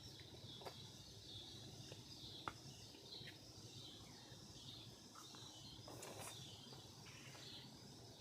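Near silence: faint outdoor ambience with small bird chirps and a few soft clicks.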